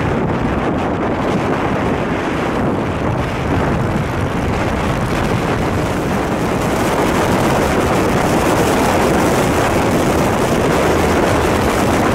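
Steady rush of wind on the microphone of a camera mounted on a moving motorcycle at highway speed, mixed with the motorcycle's engine running.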